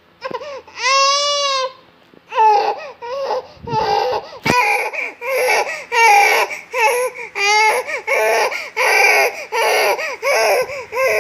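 Baby fussing and crying: one long wail, then a run of short whiny cries about twice a second, the whining of a baby who wants to nurse. A sharp click about four and a half seconds in.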